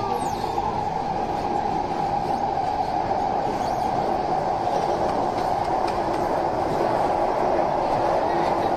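Interior running noise of a C151C MRT train in motion: a steady rumble of wheels on rail with a constant hum, getting slightly louder near the end.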